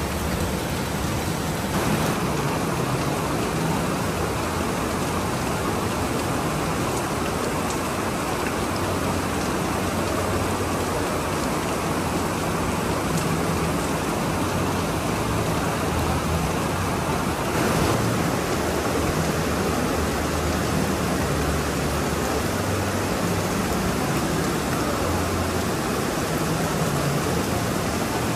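Steady rain falling, an even loud hiss with no breaks.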